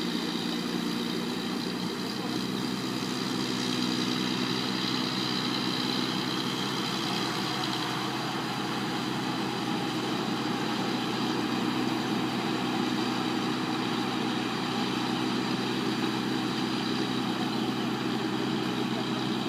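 Rice combine harvester's engine running steadily, with an even machine hum.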